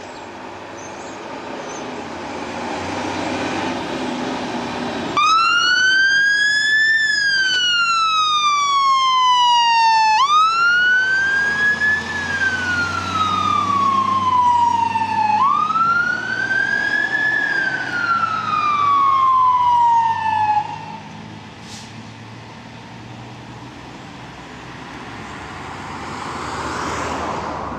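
Mercedes 1124 fire engine turning out to an emergency call. Its engine builds as it approaches, then its siren sounds a slow wail, rising and falling three times, about five seconds a cycle. The siren cuts off abruptly about twenty seconds in, and the engine carries on, growing louder again near the end.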